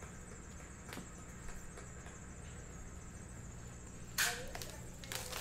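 Steady low room hum, with a faint click about a second in and a short, loud rustling scrape about four seconds in as a cardboard trading-card hobby box is picked up and handled.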